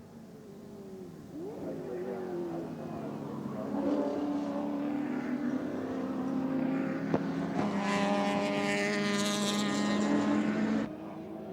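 Racing car engine running hard, its pitch rising as it accelerates and then holding high and growing louder near the end, before the sound cuts off abruptly.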